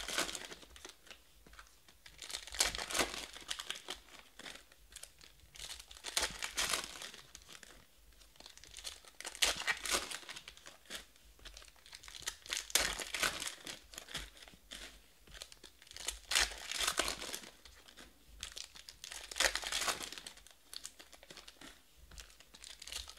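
Foil wrappers of trading card packs crinkling and tearing open as they are handled, in irregular bursts of rustling every second or few.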